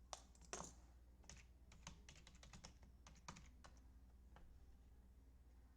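Faint typing on a computer keyboard: a run of irregular key clicks, thickest in the middle, stopping a little after four seconds in.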